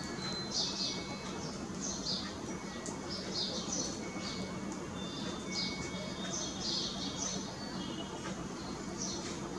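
Indian silverbills calling, short high chirps repeated irregularly, one or two a second, with a low steady hum underneath.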